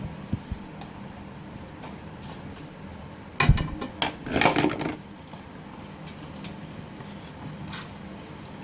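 Metal pots and cooking utensils knocking and clattering: a sharp knock a little over three seconds in, followed by about a second and a half of clinking and scraping, over a steady low hum.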